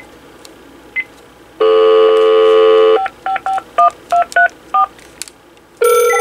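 Touch-tone keypad of a Sanyo CLT-9581 cordless phone handset heard over its speakerphone. There are two short key beeps, then a loud steady dial tone for about a second and a half. The tone is cut off by seven quick DTMF dialing tones. Near the end another steady multi-tone line sound begins.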